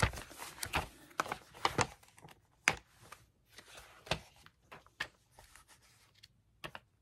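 Magazine pages being leafed through by hand: a quick flurry of paper rustling and page flips in the first two seconds, then single page turns with sharp paper snaps about once a second.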